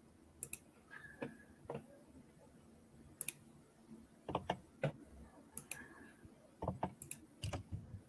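Irregular computer mouse clicks and keyboard taps, a dozen or so short clicks spread unevenly, some with a dull knock under them, heard faintly through a video-call microphone.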